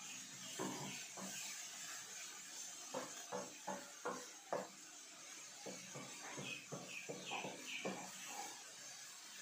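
A wooden spoon stirring and scraping vegetables around a frying pan, in a string of short scrapes and light knocks. A soft, steady sizzle from the frying vegetables runs underneath.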